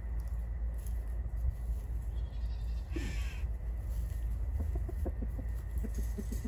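Chickens calling: a single short, falling squawk about halfway through, then a quick run of low clucks near the end, over a steady low rumble.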